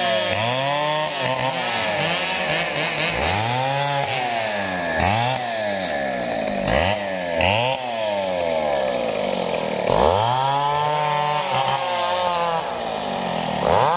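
Two-stroke chainsaw revving up and dropping back again and again, at irregular intervals of about a second, as it cuts through the branches of a felled sonokeling rosewood tree.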